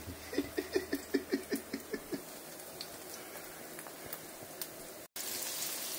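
A quick run of about nine short ticks in the first two seconds, then a faint steady hiss. After a brief cut-out near the end, oil sizzling steadily in a frying pan.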